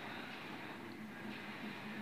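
Steady background hiss with a faint low hum: room noise, with no distinct sound standing out.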